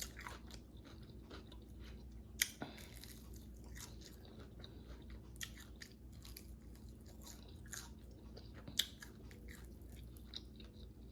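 Chewing and crunching on hard-fried, crispy chicken wings: a run of small crisp crunches, with sharper bites about two and a half seconds in and again near nine seconds.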